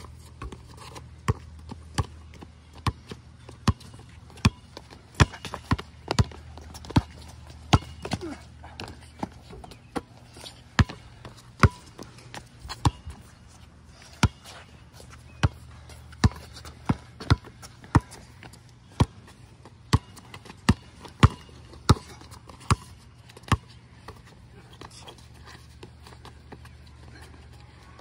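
A basketball bouncing on a concrete court, sharp bounces at an uneven pace of about one or two a second with short pauses between runs, over a faint low steady hum.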